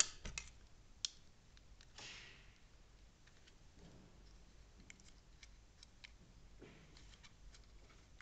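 Faint small clicks and a brief rustle of wires being handled as a stripped wire end is pushed into a plastic multi-pin switch connector. A few sharper clicks come near the start and about a second in, then lighter scattered ticks.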